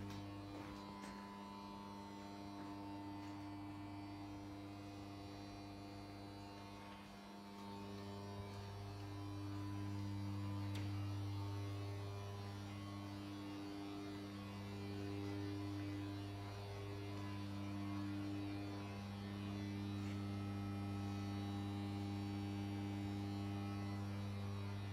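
A steady electrical mains hum with a stack of overtones above it. The upper tones waver and drop out briefly now and then while the low hum holds.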